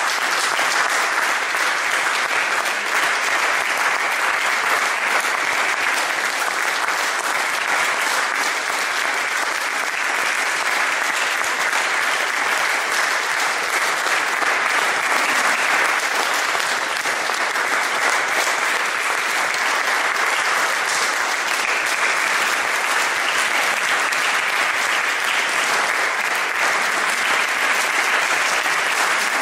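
Audience applauding steadily, a dense, unbroken clapping.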